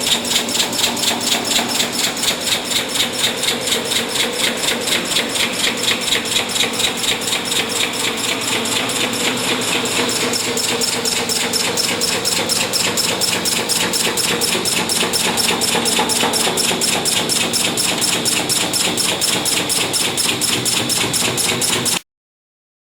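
Kocevar A98-SL-03 serial spot resistance welding machine welding a stainless steel sink into a counter top: a steady, even train of weld pulses, about four a second, that cuts off suddenly near the end.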